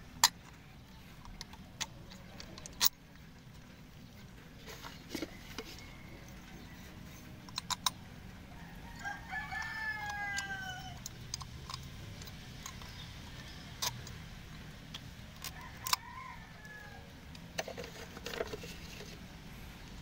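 Sharp clicks and taps of a small metal compressor part being handled and worked by hand. Midway a rooster crows once, a long call falling in pitch, with a shorter call a few seconds later.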